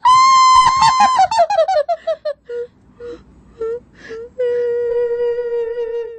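Ghost sound effect: a high wailing voice held for about a second over a descending, cackling laugh, then a few short moans, and from about four seconds in one long, slightly wavering lower wail.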